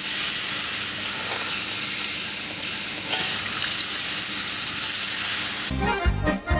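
Water sizzling and hissing into steam on a hot, freshly welded steel casing, a steady hiss that cuts off abruptly a little over five seconds in, when accordion music starts.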